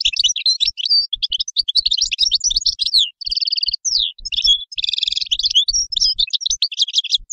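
European goldfinch singing: a fast, unbroken twittering song of high, quick-changing notes, broken twice a little past the middle by short buzzy trills.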